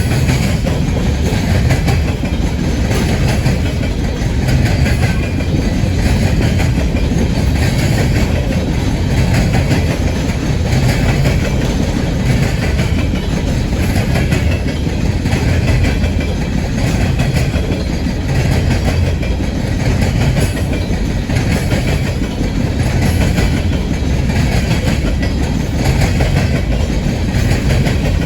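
Freight train cars rolling steadily past, the wheels clacking over the rail joints in a repeating rhythm.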